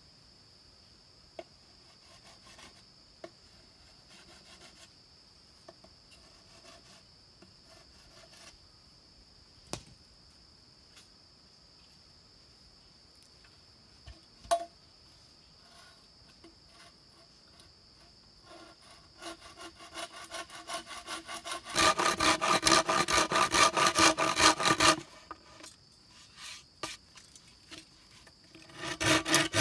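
Hand saw cutting through a green bamboo pole in rapid back-and-forth strokes. The strokes start lightly about two-thirds of the way in and are loudest for a few seconds after that. They pause, then start again right at the end. Before the sawing there are only a few light knocks over a steady high insect drone.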